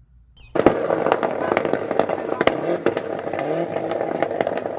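Rally car engine running hard at high revs, with a rapid crackle of sharp pops and bangs, starting suddenly about half a second in.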